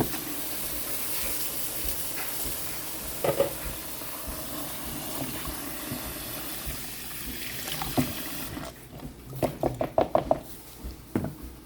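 Kitchen tap running with celery stalks being rinsed under the stream; the water stops suddenly about eight and a half seconds in, followed by a few light knocks.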